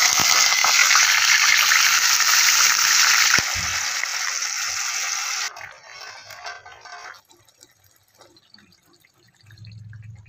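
Water pouring steadily into an aluminium pot where a whole eggplant is being washed, stopping about five and a half seconds in, followed by a few quieter small splashes and knocks.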